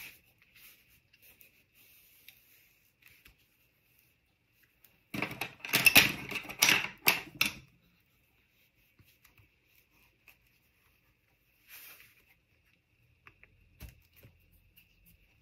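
Bone folder rubbed along a fold in card stock: a burst of several quick scraping, rustling strokes lasting about two seconds, starting about five seconds in. Faint light taps and rubs of paper come before and after it.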